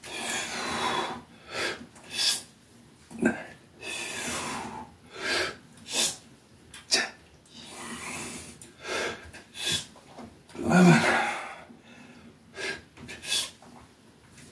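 A man's heavy, effortful breathing while pressing resistance bands overhead: short sharp puffs of breath in and out, about one or two a second, with a longer hard exhale every few seconds and a brief voiced grunt about eleven seconds in. The laboured breathing comes with a chest cold he has not yet shaken off.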